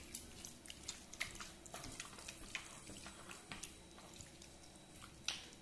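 A hand kneading raw chicken cubes in a wet, spicy marinade in a ceramic bowl: faint, irregular wet squelches and small clicks, with one sharper click near the end.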